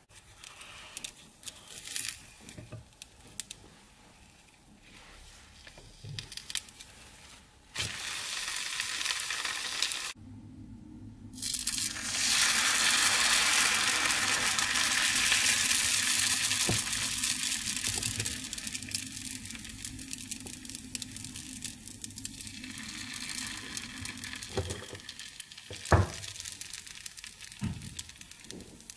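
Crepe batter sizzling in a hot non-stick frying pan as it is ladled in and spread. The sizzle is loudest about twelve seconds in and slowly dies down, with a sharp knock near the end.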